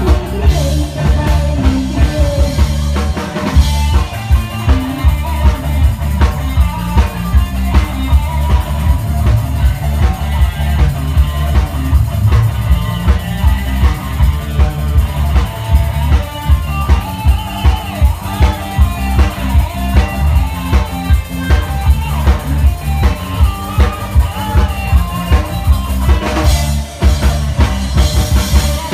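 Live band playing an instrumental passage of Khmer disco dance music, led by a Tama drum kit with a steady bass-drum beat of about two hits a second.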